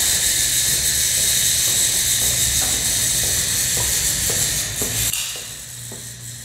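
Electronic hiss like sizzling static over a low steady hum, with faint scattered clicks. About five seconds in the hiss drops away and the sound fades.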